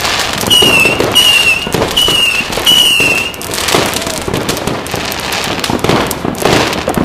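Firecrackers and fireworks banging and crackling densely without pause. A short, high, slightly falling whistle-like tone sounds four times in quick succession in the first three seconds or so.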